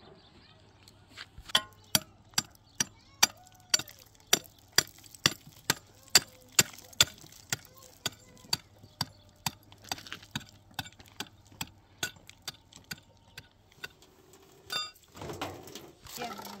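Sharp knocks on a hollow concrete block as it is tapped down and levelled on a block wall, about two a second. They are loudest at first, then softer, and stop a few seconds before the end.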